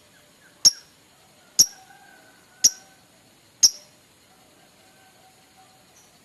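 Lovebird giving short, sharp, high-pitched calls, four of them about a second apart.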